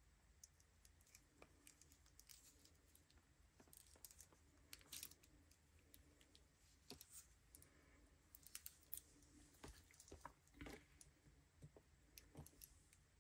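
Faint handling noises: soft scattered clicks and rustles of a wristwatch's leather strap and steel case being turned in the hands and fastened onto a wrist.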